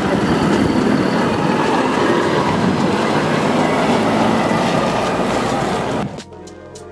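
Volvo FH heavy recovery truck driving past at close range: a loud, steady mechanical rumble of its diesel engine and running gear. About six seconds in it cuts off abruptly and background music takes over.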